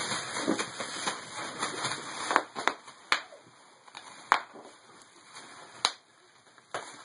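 Bubble wrap crinkling as it is stepped on, with about six sharp pops spread over the second half as bubbles burst.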